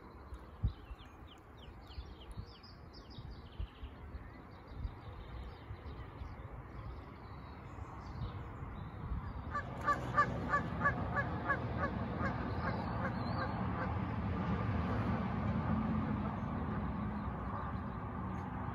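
Faint small-bird chirps, then from about halfway a goose honking over and over, about three to four calls a second, over a low rumble.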